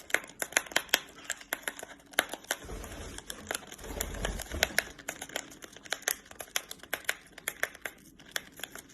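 A parrot tearing and crinkling open a tea bag wrapper with its beak: an irregular run of sharp crackles and rips, with a low rumble about three to four seconds in.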